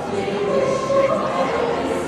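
Choral singing with music, voices holding long notes.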